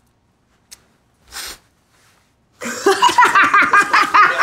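A woman laughing hard, loud, rapid and repeated. The laugh starts about two and a half seconds in, after a near-silent stretch with a faint click and a short breathy hiss.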